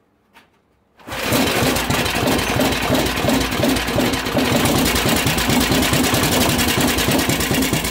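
Freshly rebuilt Russian DM1 small engine, with reground head and new head gasket, started by rope pull: after a faint click it fires about a second in and catches at once, running steadily with a rapid, even beat. It runs smoothly, what the owner calls purring.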